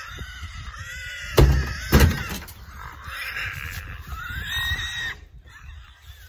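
Two heavy thumps about half a second apart, amid drawn-out squeaks that rise and fall in pitch.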